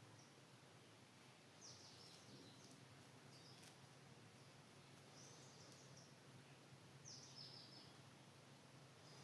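Faint chirps from pet budgerigars: a few short, high calls that drop in pitch, spaced a second or more apart, over a low steady hum.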